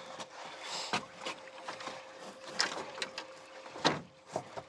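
Scattered knocks and clicks on a boat, the loudest about four seconds in, over a faint steady hum.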